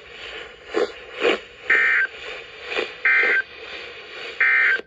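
Emergency Alert System end-of-message data signal on a radio broadcast: three short, identical bursts of high two-tone digital squawk, a little over a second apart, over radio hiss with a few soft crackles between them.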